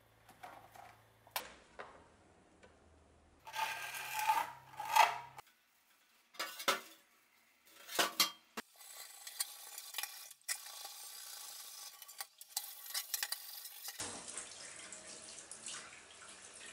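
Metal clanking and knocking as a rusty corn axe blade is handled after its electrolysis bath, then the blade being scrubbed against a stainless-steel sink, and tap water running over it near the end.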